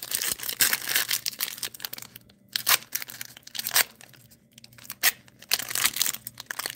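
Foil wrapper of a 2023-24 Panini Donruss basketball hobby pack being torn open and crinkled by hand: a run of crackly tears and crinkles with a couple of short pauses.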